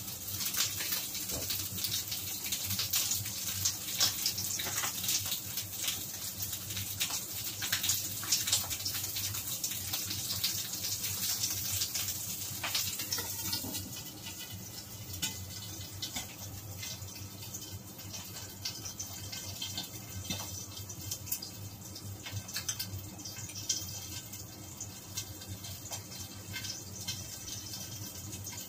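Pork cheek sizzling and spitting in its own rendered fat in a wok, a dense crackling hiss. About halfway through, a lid goes on and the sizzle becomes quieter and muffled.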